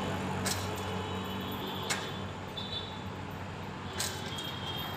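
Steady outdoor background noise like distant traffic, broken by three sharp knocks about half a second, two and four seconds in.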